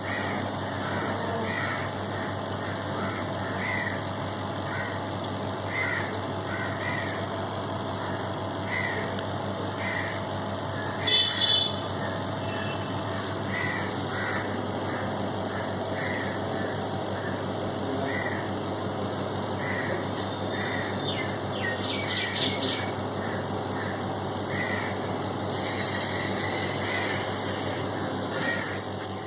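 A steady low hum of a small motor runs throughout, with short sounds recurring about once a second over it and brief high chirps about a third of the way in and again near two-thirds.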